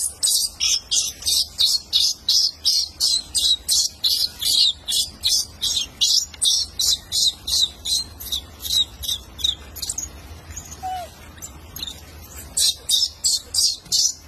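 Short high chirps repeated evenly, about three or four a second; they stop about ten seconds in and come back briefly near the end.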